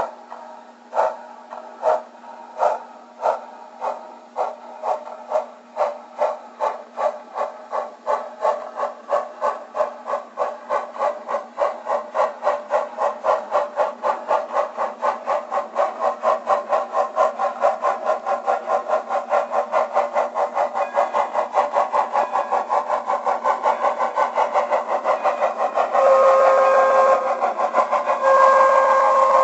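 Sound-equipped On30 model steam locomotive pulling away: its steam chuffs start slow, about one a second, and quicken steadily to a rapid beat as the train gathers speed. Two blasts of a chime whistle sound near the end, over a faint steady hum.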